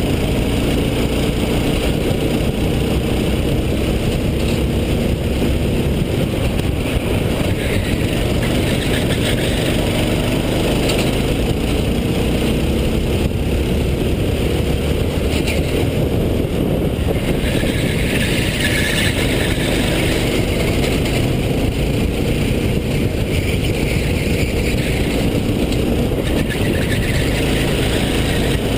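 Racing kart engine under way at race pace, its pitch rising and falling as the kart speeds up on straights and slows for corners, over a steady rush of noise.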